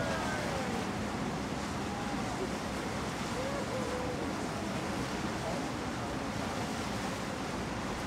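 Steady wind and water rushing past a coastal ship under way, with a few faint distant calls near the start and again about three and a half seconds in.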